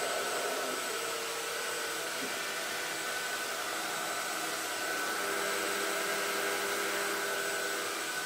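CNC vertical machining center running: a steady whine of several held tones over an even hiss.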